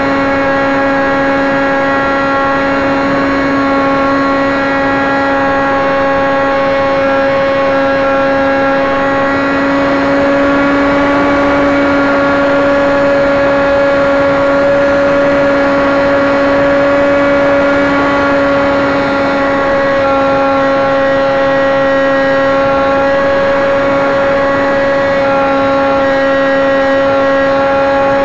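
Cox .049 two-stroke glow engine on a model aircraft running steadily at high revs in flight: a loud, high-pitched buzz with small wavers in pitch, over a rush of air.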